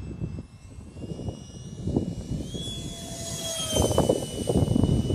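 A 64mm electric ducted fan RC jet whining high overhead. The whine climbs in pitch a little past halfway, then eases slowly down as the jet passes. Underneath is a low gusty rumble that grows stronger near the end.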